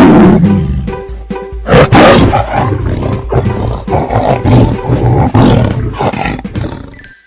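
Big cat roaring: a loud roar at the start and another about two seconds in, followed by a series of shorter grunting calls about every half second, over background music. It stops abruptly just before the end.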